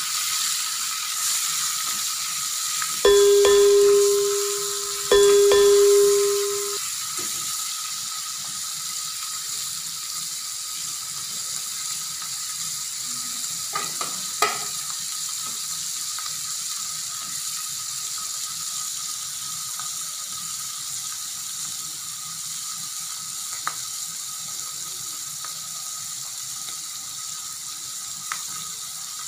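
Dried fish frying in hot coconut oil in an aluminium pan, a steady sizzle. About three seconds in come two loud ringing tones, two seconds apart, each lasting about a second and a half and fading out. A few faint clicks follow later.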